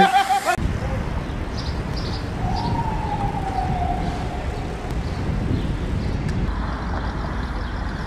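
City street traffic rumble, with a siren wailing once near the middle, falling in pitch over about two seconds.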